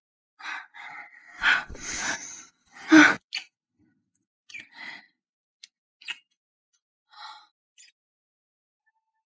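A person gasping and sighing: two louder gasps in the first three seconds, then a few short, fainter breaths.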